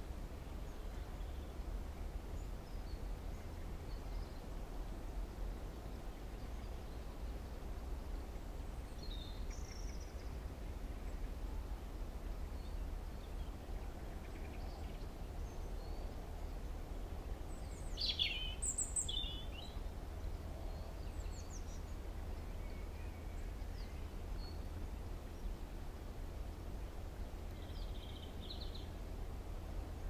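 Outdoor ambience: a steady low rumble with faint, scattered bird chirps. A short, clearer burst of bird calls comes a little past the middle.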